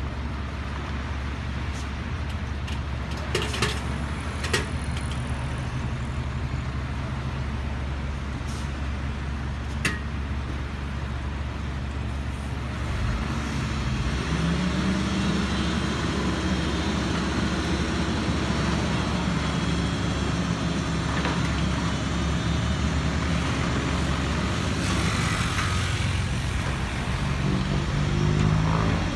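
Komatsu PC200 hydraulic excavator's diesel engine running steadily, with a few sharp metallic clanks early on; about halfway through it grows louder and takes on a higher engine note as the machine works under load.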